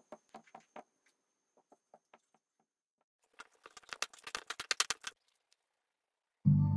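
Metal spoon mashing bananas in a bowl: a quick run of sharp clicks and squelches, after a few softer scattered clicks as the banana is broken up. Background music comes in near the end.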